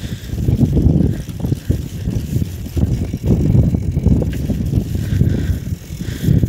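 Wind buffeting the microphone while cycling: an uneven low rumble that swells and drops every second or so.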